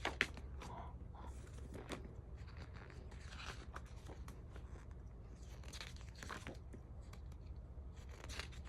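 Glossy photobook pages being turned one after another: a soft paper swish every second or two, several in all.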